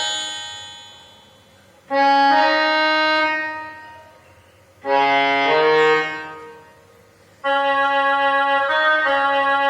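Casio CT-S200 portable keyboard playing a slow series of held chords in a sustained voice. A chord fades out at the start, and three more sound about 2, 5 and 7.5 seconds in, each held for around two seconds.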